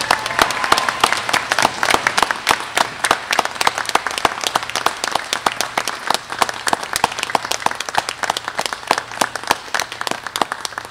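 Applause from a small group of about fifteen people, the separate hand claps standing out; it thins out toward the end and stops.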